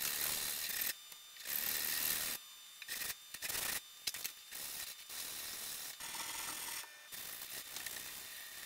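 Sheets of sandpaper being handled and rubbed by hand against a block, an irregular run of rustling, scraping bursts with short pauses between them.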